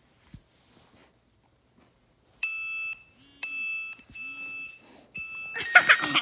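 Squeaky dog toy squeaked four times in a row, starting a little over two seconds in. Each squeak is a steady high-pitched tone about half a second long, with uneven gaps between them, and near the end comes a louder, rougher squeak.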